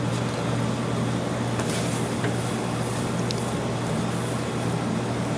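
Steady low machine hum under an even hiss, with one faint tick about three seconds in.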